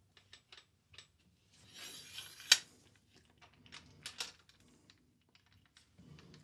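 Scattered clicks and knocks from a microphone boom stand being handled and adjusted. About two seconds in there is a short scraping stretch that ends in one sharp click, the loudest sound, and a few more clicks follow a couple of seconds later.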